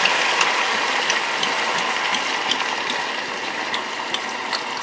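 Red wine poured into a hot roaster over seared wild boar and browned root vegetables, deglazing it: a steady sizzle with scattered crackling pops that slowly dies down.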